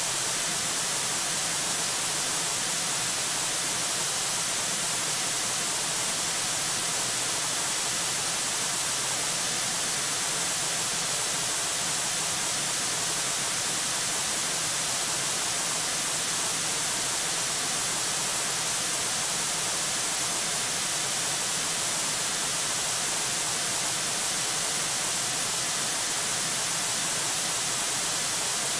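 Steady hiss of static from the nest camera's audio feed, even throughout, with no distinct calls or knocks.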